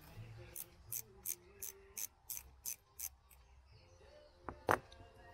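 Ratcheting spanner clicking in an even run, about three clicks a second, as a nut on a motorcycle's front brake caliper is turned, followed by one louder, sharper click near the end.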